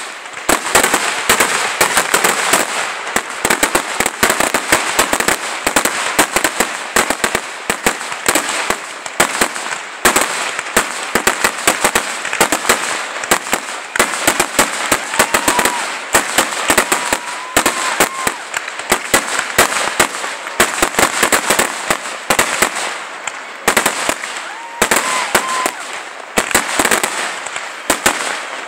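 Aerial firework shells bursting in a rapid, unbroken barrage, with dense bangs overlapping a constant loud crackling.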